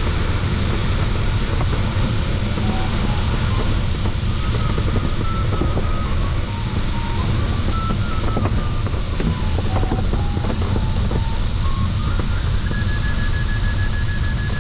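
Steady rush of airflow in the cockpit of an LS3 sailplane in flight. Over it, a variometer gives short beeps that step up and down in pitch. Near the end the beeps settle into a steady, higher-pitched run, a sign of the glider beginning to climb in a thermal.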